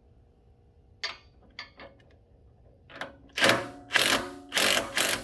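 A 3/8-inch impact wrench fired in three short bursts, each about half a second, hammering a sway bar link nut tight onto its new rubber bushings. Before the bursts come a few sharp metallic clicks as the socket is set on.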